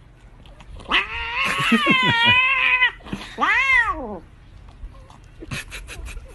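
Domestic cat yowling while eating a lickable tube treat: two long meows, the first wavering in pitch, the second rising then falling. A few quick clicks of licking follow near the end.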